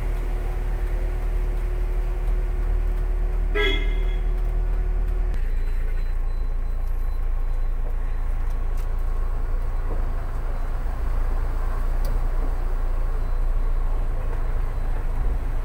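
Low, steady rumble of a car's engine and cabin as it drives slowly through a flooded street. A short horn toot sounds about three and a half seconds in.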